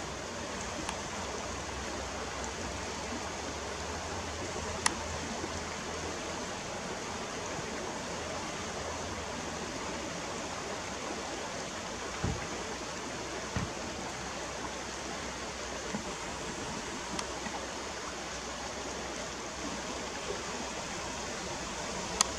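River water running steadily over a shallow, stony bed, a constant rushing hiss. A few short sharp clicks stand out, the loudest about five seconds in and another near the end.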